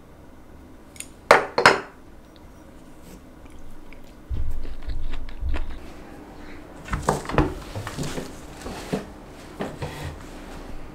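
Tableware clattering: two loud sharp clinks about a second in, a low dull rumble near the middle, then a run of lighter clinks and taps.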